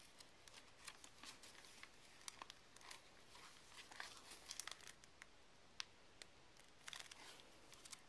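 Faint rustling and crinkling of paper pages being turned by hand in a handmade cardboard-bound journal, with scattered soft ticks.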